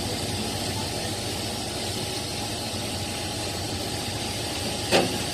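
Steady rushing noise of a gas burner flame under a covered wok, together with a kitchen wall exhaust fan running, with one sharp knock about five seconds in.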